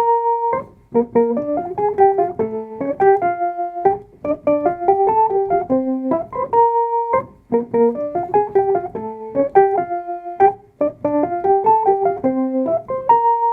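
Background music: a keyboard, piano-like in tone, plays a short phrase of quick notes that repeats every few seconds.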